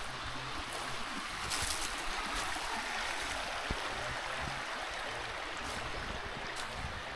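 Steady rushing of flowing water, like a stream.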